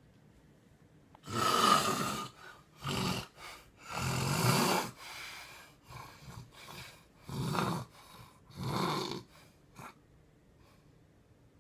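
A man snoring loudly in five uneven snores, the first, about a second in, the loudest, with fainter breaths between them.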